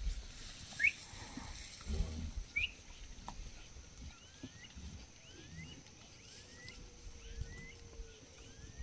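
An animal's faint, short rising chirp-like calls: two stronger ones early on, then a run of them a little under one a second, over scattered low thumps.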